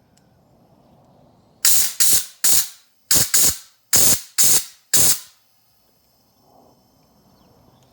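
Compressed air from a Kobalt 20-gallon oil-free air compressor hissing out of the air hose in eight short, loud blasts, released in quick pairs over about four seconds.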